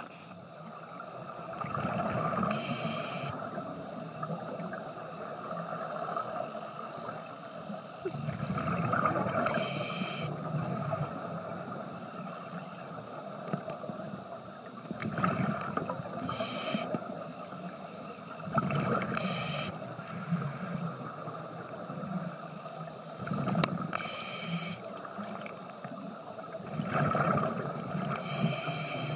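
A scuba regulator breathing underwater: six short, sharp hisses of inhalation, each followed by a longer low bubbling rumble of exhaled air.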